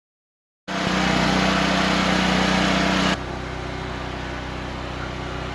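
Portable generator engine running steadily, loud at first, then abruptly much quieter about two and a half seconds in, its noise muffled by a homemade Rockwool-insulated sound barrier.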